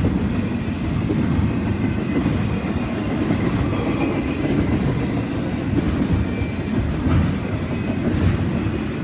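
Norfolk Southern freight cars rolling past: a steady low rumble of wheels on rail, with occasional faint clicks as wheels cross rail joints.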